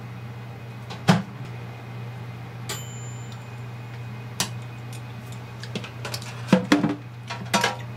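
Microwave oven door handled, with a loud clack about a second in, followed by a brief high-pitched tone and, near the end, several knocks and clatter of a plate and crockery, over a steady low hum.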